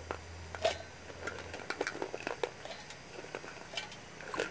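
Broken pieces of fried semolina fritters dropped by hand from a steel plate into a stainless-steel mixer-grinder jar: scattered light clicks and taps of the pieces and the metal plate against the jar.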